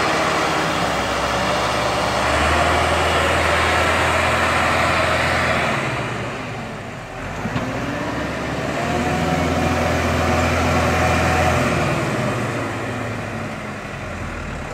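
Massey Ferguson 385 tractor's diesel engine running under load, hauling and then reversing a trolley loaded with soil. The engine note swells to a heavier pull twice and eases off in between.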